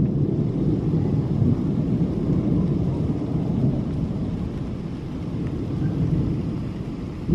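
Thunder rumbling in a long, rolling peal, with rain falling.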